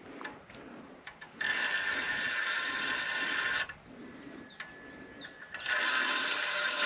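Fishing reel being cranked to wind in a hooked chub on a bolognese float rod: a steady geared whirr in two spells, with a few clicks in the pause between.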